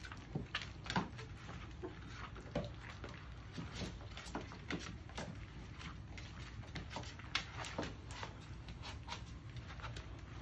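A litter of young puppies squeaking and whimpering with many short, sharp cries, mixed with the patter of small paws scrabbling on a plastic pool and blanket.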